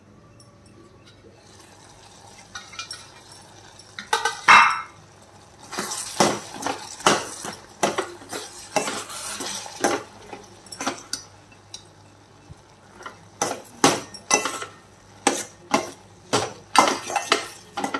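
Steel ladle stirring a thick mixture of turkey berries, tomato and shallots in a stainless-steel pot: repeated metal-on-metal clinks and scrapes against the pot's sides, starting about four seconds in.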